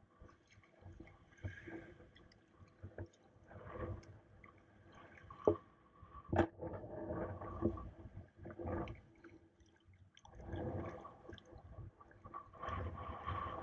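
Water sloshing and splashing from sea-kayak paddle strokes, coming in irregular swells every second or two, with two sharp knocks near the middle.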